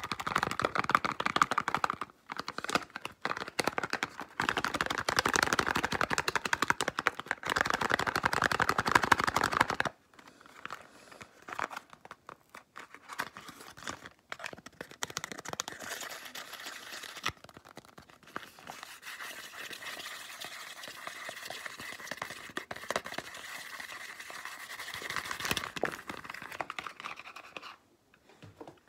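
Fingers tapping and scratching fast on a small white cardboard box, dense and loud for the first ten seconds, then softer and sparser.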